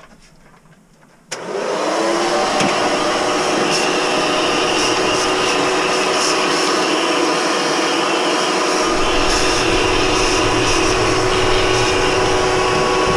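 Vacuum cleaner switched on about a second in, its motor spinning up to a steady whine, used to clear dirt from around the intake manifold bolts.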